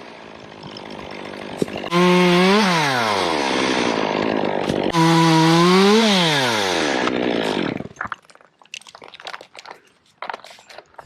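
Two-stroke chainsaw revved twice: a short blip about two seconds in that rises and falls back, then a second rev held for about a second before the pitch winds down. Faint scattered clicks and knocks follow.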